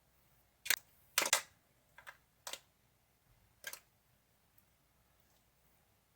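Clicky clear slime being squished and stretched by hand, giving a handful of short, sharp clicks and bubble pops at irregular intervals.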